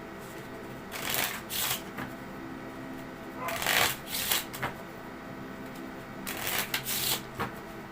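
A deck of playing cards being shuffled by hand, in three bursts of rustling a couple of seconds apart.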